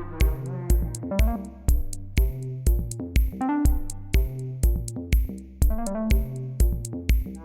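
Electronic music with a steady kick-drum beat about twice a second under a synthesizer melody.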